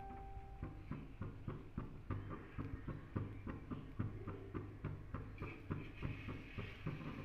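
Faint background music: a steady clicking beat about four times a second over a low hum.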